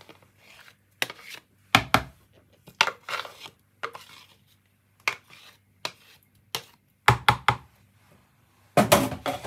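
A spoon knocking and scraping against a container to get the last of a wet seasoning paste out: a dozen or so separate sharp knocks with pauses between, several in quick succession about seven seconds in.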